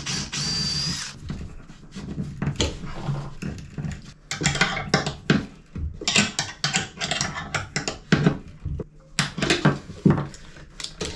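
A cordless drill runs for about a second with a steady high whine. A string of clicks, clatters and knocks follows as parts are handled.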